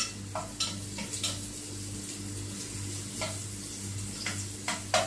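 Grated onion sizzling in hot oil in a small pot while a spoon stirs it, knocking sharply against the pot about nine times. The onion is being fried until it turns brown.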